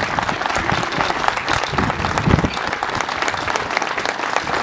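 Crowd applauding, many hands clapping in a steady patter.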